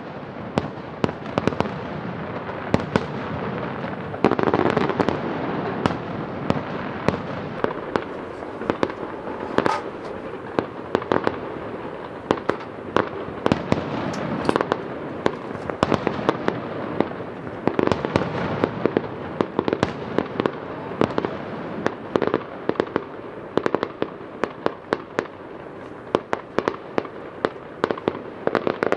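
Aerial fireworks display: a rapid succession of shell bursts and sharp reports over a continuous crackle. Toward the end the reports thin out into separate sharp pops.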